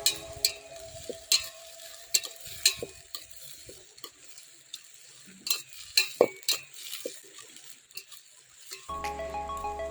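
Food sizzling in a cooking pot while a metal spoon stirs and scrapes it, with a series of sharp clinks against the pot. Background music comes back near the end.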